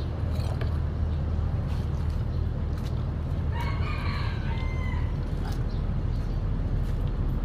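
A single bird call lasting about a second, heard about three and a half seconds in over a steady low rumble.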